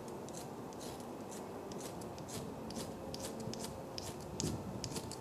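A ferro rod (fire steel) scraped again and again with a striker, throwing sparks onto birch-bark tinder: short, sharp rasping strokes, about three or four a second.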